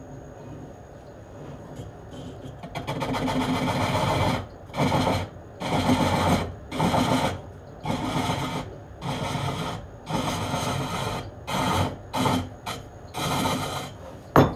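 Hook tool cutting a spinning wooden cup blank on a Japanese-style lathe: one longer cut about three seconds in, then about a dozen short scraping cuts, each under a second, with brief pauses between them.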